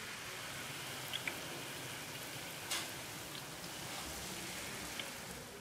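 Jalebi batter frying in a wide pan of hot oil: a steady sizzle with a few small pops, the sharpest a little under halfway through.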